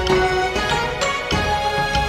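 Background music with held notes over a low bass.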